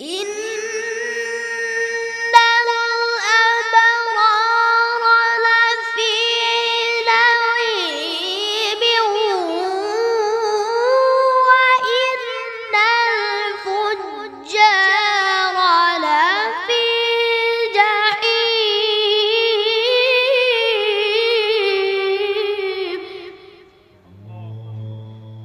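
A seven-year-old boy reciting the Quran in the melodic tajweed style: one long phrase held on a high, steady pitch, with ornamented turns and gliding dips, that ends about a second and a half before the close.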